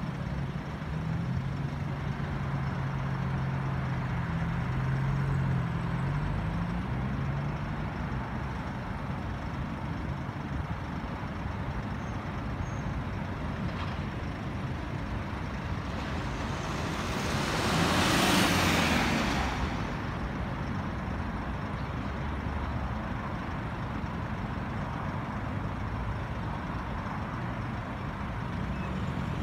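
VDL Futura FHD2 coach's diesel engine idling in slow traffic, a steady low hum with a low drone over the first seven seconds or so. About eighteen seconds in, a louder rushing hiss swells and fades over about three seconds.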